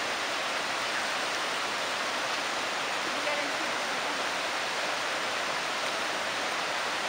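Waterfall and the stream below it: a steady, even rush of falling water.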